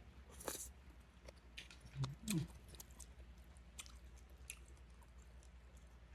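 Faint chewing and slurping of beef noodle soup, with small wet mouth clicks and a brief hissing slurp about half a second in. A short rising mouth sound follows just after two seconds.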